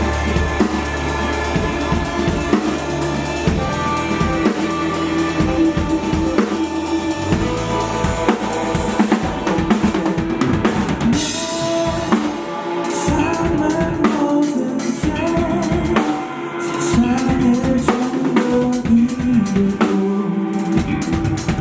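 Live band playing an instrumental passage of a song. A drum kit with kick and snare keeps the beat under sustained pitched instruments.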